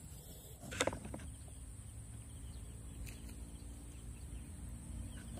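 Faint outdoor background noise: a low rumble and a steady high hiss, with one short, sharp sound about a second in.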